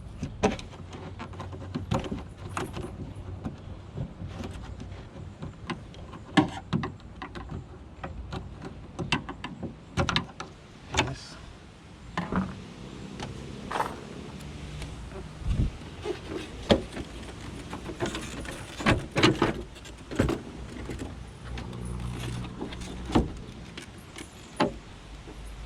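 Irregular clicks, snaps and knocks of plastic trim and clips being unclipped and worked loose from a Dodge Challenger's tail light panel, over a low steady hum.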